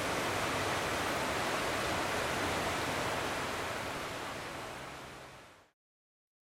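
Steady rushing street ambience with no distinct events, fading out about five seconds in to silence.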